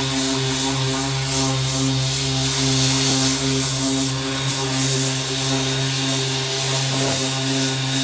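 Corded 6-inch random orbital sander running steadily, its 80-grit disc grinding paint and rust off a metal wheel-well panel: a constant motor hum under a rough, scratchy hiss that swells and eases as the sander moves.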